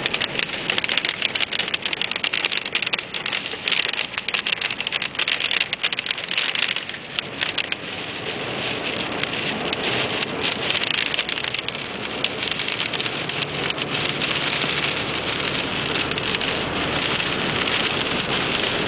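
Precipitation hitting the windshield of a moving car, heard inside the cabin over steady road and wind noise. The impacts are dense for the first several seconds and thin out after about eight seconds, leaving a steady rush of road noise.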